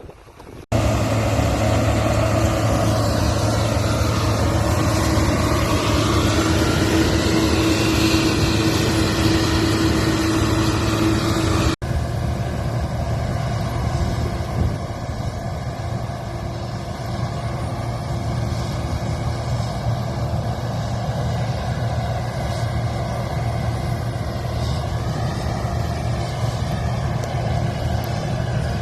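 Combine harvester's diesel engine and machinery running steadily with a constant low hum. The sound breaks off sharply about twelve seconds in and comes back a little quieter and duller.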